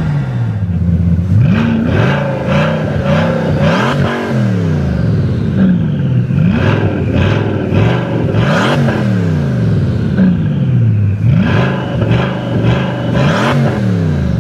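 Bugatti Chiron's quad-turbocharged 8.0-litre W16 engine revved repeatedly while stationary, its pitch climbing and falling back with each of about six or seven throttle blips. A high whistle slides down between some of the blips.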